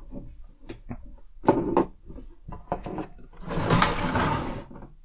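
Assembled LEGO building sections being handled and moved on a wooden tabletop: scattered plastic clicks and knocks. About three and a half seconds in comes a louder rush of noise lasting about a second.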